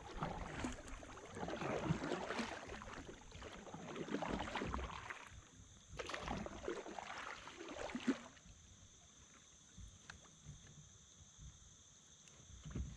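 Kayak paddle strokes: the blades dip and splash through river water in a run of swishes, with a sharp knock about eight seconds in, then the paddling eases to quieter drips and lapping.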